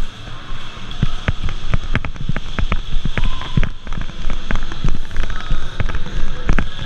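Airsoft guns firing in a game: sharp, irregular snapping shots, several a second, with no steady rhythm.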